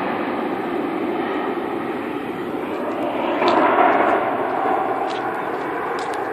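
Jet airliner engines, a steady loud rush that swells briefly about three and a half seconds in.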